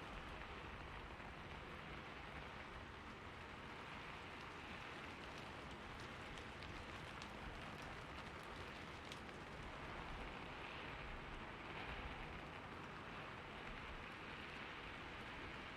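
Steady rain falling on a roof: an even hiss with a few sharper drop ticks scattered through it.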